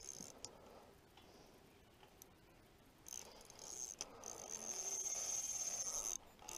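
Spinning reel's drag buzzing as a hooked kingfish strips line: a steady, high-pitched ratchet whirr that starts about three seconds in and cuts out briefly near the end.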